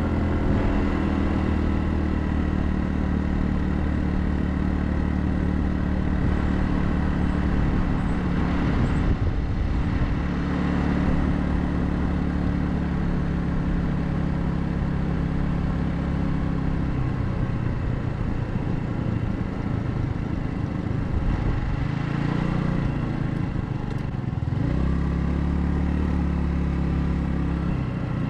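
Royal Alloy GT150 scooter's 150 cc single-cylinder engine running under way, with wind and road noise. The engine note holds steady, drops about two-thirds of the way through, then rises and falls twice near the end as the throttle is opened and eased off.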